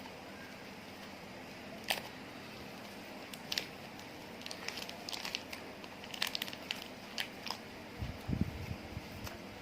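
Slime being squished and mixed by hand: scattered small sticky clicks and crackles, getting busier from about four seconds in, with a few soft low thumps near the end.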